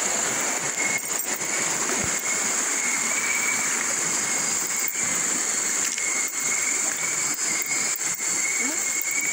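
Steady rush of a shallow, rocky river flowing over stones, with a few faint knocks scattered through it.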